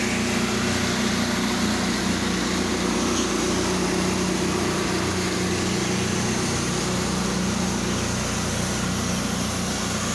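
Engine-driven pressure washer running steadily, with water hissing from the spray wand.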